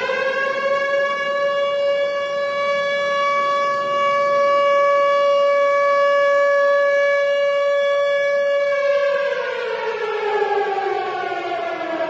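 Tornado warning siren wailing: it reaches its full pitch just after the start, holds one steady tone for about nine seconds, then winds down with its pitch falling over the last few seconds.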